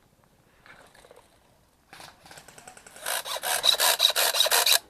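Airsoft gun firing a rapid string of shots, about seven a second, starting faintly about two seconds in and loud for the last two seconds, with a steady high whine under the clatter.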